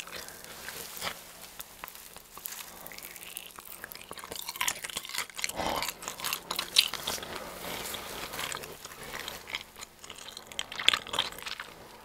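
Close-miked biting and chewing of a giant cheese ball: dough crust and stretchy melted cheese, heard as irregular crackles and wet mouth smacks, louder in clusters a few seconds in and again near the end.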